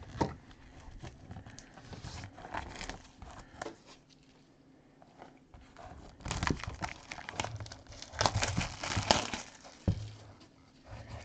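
Shrink-wrap plastic being torn and peeled off a sealed trading-card box, crinkling and crackling in irregular spells, with a quieter pause about four seconds in.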